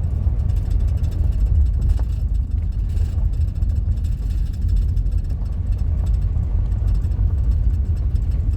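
Steady low rumble of a minivan's engine and tyres heard inside the cabin while driving along a smooth stretch of road.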